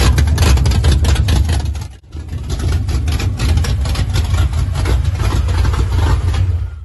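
Freshly built Ford 5.0L V8 in a Fox-body Mustang GT running loud and steady with a rapid pulsing exhaust note, newly got running for the first time. The sound dips sharply for a moment about two seconds in.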